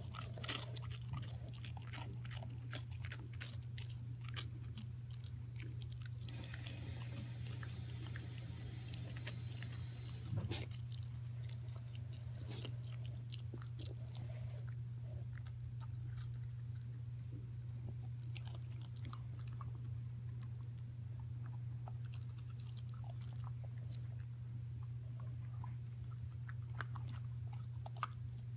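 A puppy chewing and crunching food, with many small crunches over a steady low hum. A stretch of hiss about six seconds in ends with a thump about ten seconds in.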